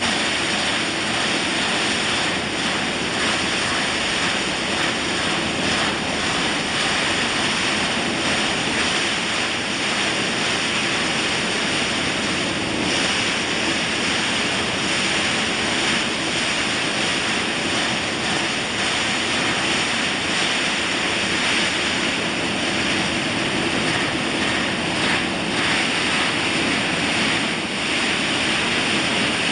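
Pumpkin seed shelling and hulling machine group running: a steady, dense rushing noise from the belt-driven hullers and the seeds moving through them, even in level throughout.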